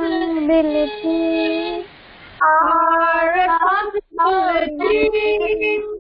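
A voice singing a devotional alphabet rhyme in long held notes, with a short pause a little before halfway and a brief break about two-thirds in.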